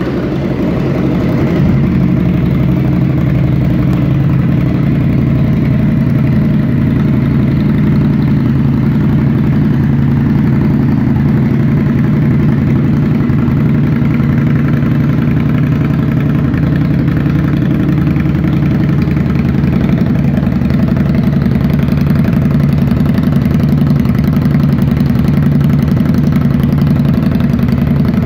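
2018 Indian Scout Bobber's liquid-cooled V-twin engine idling steadily in neutral just after being started.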